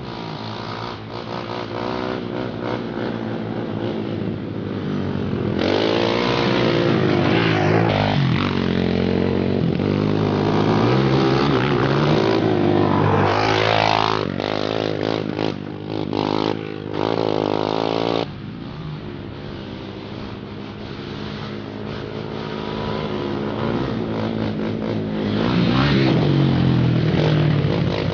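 ATV engine revving while riding, its pitch climbing and falling repeatedly with the throttle, with several abrupt drops in level near the middle.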